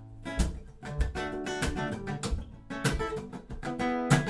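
Acoustic guitar intro, strummed chords in a steady rhythm.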